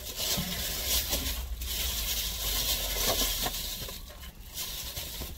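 Crinkling and rustling of food packaging, with scattered sharp crackles, over a steady low hum.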